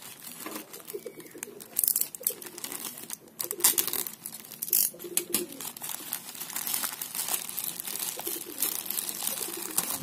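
Clear plastic courier bag crinkling and crackling as hands handle and start to tear open a small boxed parcel, in irregular sharp crackles with a few louder ones. Low pitched sounds recur several times underneath.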